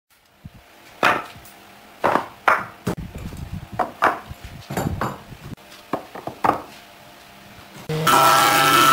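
Thick wooden boards knocked and set down one on another, an irregular series of sharp wooden knocks. Near the end a jointer starts planing a board, a loud steady machine noise with a low hum.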